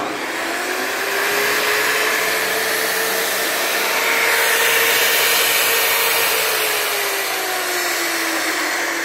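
Metabo cut-off saw's electric motor running after switch-on, rising in pitch as it comes up to speed over the first second or two and then running steadily with a loud whine, its pitch sagging slowly in the last few seconds. It is fed through about 95 m of extension cords in series to limit the inrush current, and the B16 breaker holds.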